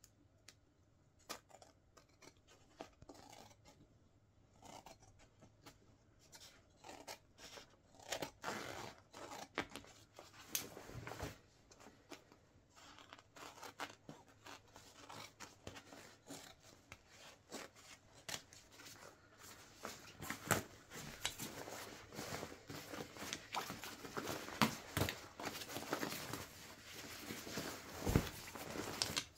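Scissors cutting through the fabric of a Wellensteyn Schneezauber jacket: a run of irregular snips with rustling of the material. The snips are sparse and quiet at first, then come denser and louder from about a third of the way in.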